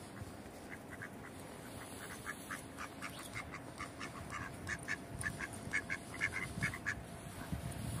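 Mallard ducks quacking in a quick series of short calls, sparse at first and coming thicker from about three seconds in.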